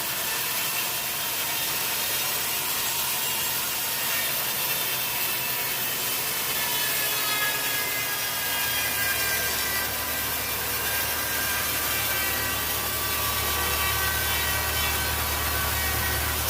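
Sawmill saw cutting through a teak log: a steady high whine with several fixed tones over a hiss. A low hum comes in about halfway through.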